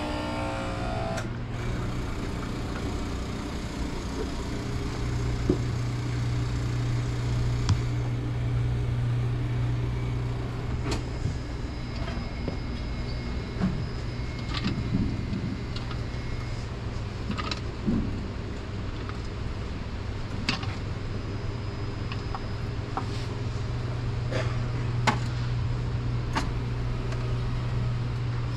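Steady low cabin hum, with scattered sharp clicks and knocks. A higher drone stops about a second in.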